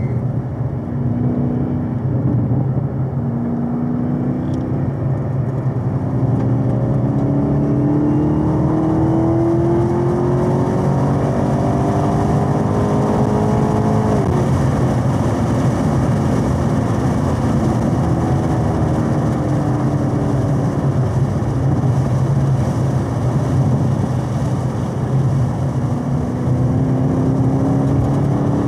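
Chevrolet Camaro ZL1 1LE's supercharged 6.2-litre V8, heard inside the cabin, pulling hard under full throttle with its note rising steadily to near the redline. The pitch drops sharply about halfway through, sinks slowly as the car slows for a corner, and rises again near the end.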